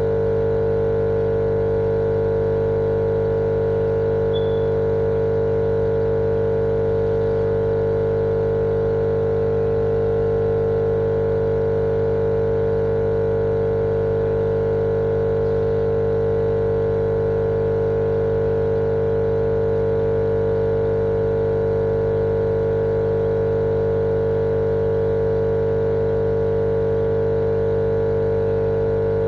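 Steady, unchanging machine drone: a strong hum with several fixed tones over a low rush of noise, with no change in pitch or loudness.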